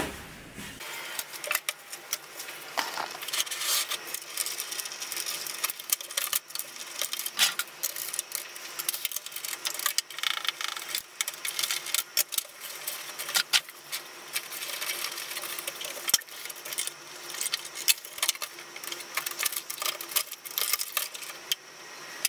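Many small clicks, taps and rattles of plastic and metal computer parts being handled inside an open desktop PC case as connectors are unplugged and components taken out.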